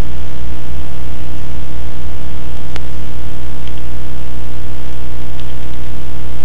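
Loud, steady electrical hum with hiss, as from a noisy recording chain. A single sharp click about three seconds in and a few faint ticks after it, likely keystrokes as a class name is typed.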